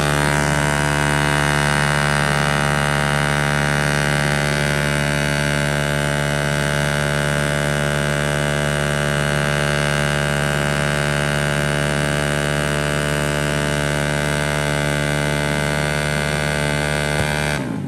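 A motor scooter's engine held at high, steady revs during a stationary burnout, its rear tyre spinning against the concrete. One long, unchanging engine note.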